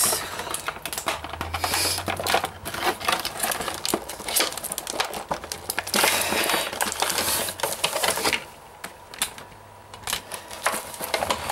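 Clear plastic blister packaging and a cardboard toy box being handled and pried at, with rapid irregular crinkling and clicking of the plastic. It goes briefly quieter about eight seconds in.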